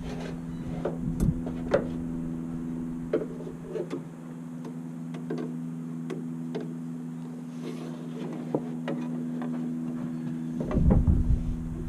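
Scattered light clicks and taps as a thin metal retaining strip and rubber cowl gasket are handled and positioned against a car's firewall, over a steady low hum. Wind rumbles on the microphone near the end.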